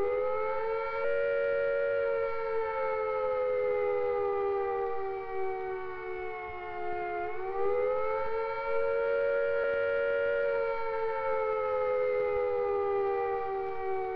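Civil defence siren sounding the attack warning, a wail that slides slowly down in pitch, rises again about seven seconds in, and falls once more. The rising and falling note is the British signal that attack is imminent and people should take cover at once.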